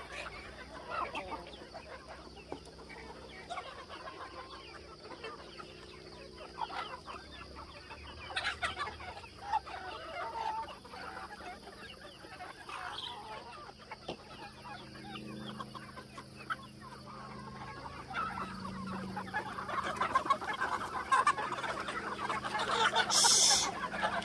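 A flock of backyard chickens clucking and calling, the calls overlapping and growing louder and busier over the last few seconds as the birds crowd toward a bucket of cut grass. A short hiss comes near the end.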